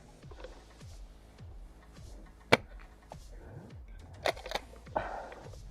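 Background music under a few sharp cracks of airsoft gunfire, the loudest about two and a half seconds in and more near the end.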